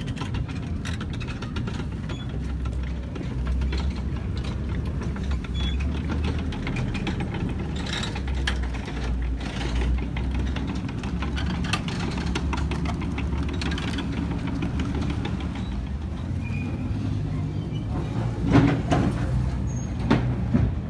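Engine of a WWII Stuart light tank running with a steady deep drone as the tank drives past close by, with some clatter on top and a few louder knocks near the end.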